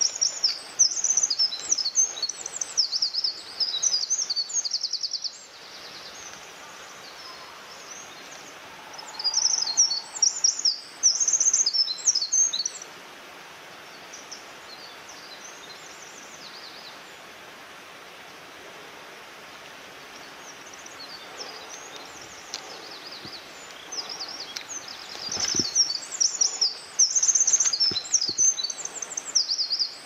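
Small songbirds singing in quick, high, twittering phrases, in bursts near the start, again around ten to thirteen seconds in, and once more near the end, over a steady soft background hiss.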